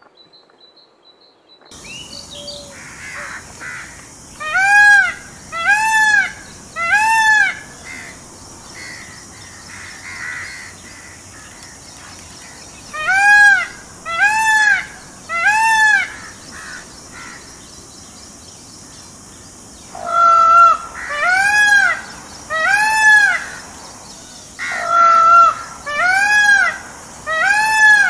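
Indian peafowl (peacock) calling: loud, ringing calls in sets of three about a second apart, then a longer run of calls near the end.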